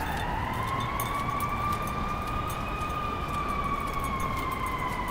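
Emergency vehicle siren in a slow wail: its pitch rises over the first second or two, then slowly falls, over a steady low street rumble.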